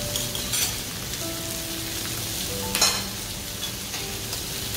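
Pork belly and pork neck sizzling steadily on a grill pan, with a short sharp clack a little after halfway and a fainter one near the start.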